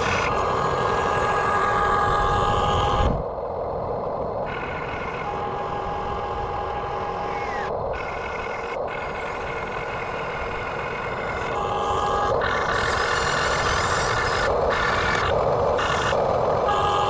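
Radio-controlled backhoe excavator running: a steady whine with mechanical noise beneath it, changing abruptly every few seconds.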